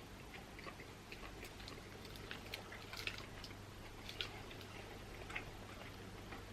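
Faint chewing of a seaweed-wrapped sushi rice triangle, with small irregular mouth clicks.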